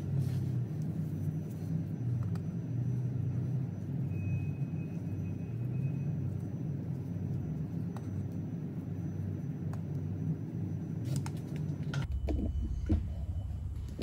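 A steady low mechanical rumble, like a motor or machine running in the background. It changes abruptly to a different low hum about twelve seconds in, with a few clicks near the end.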